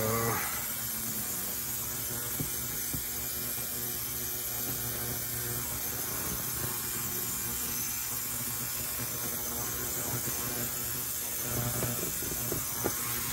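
Steady low hum in a small room, with a few faint clicks.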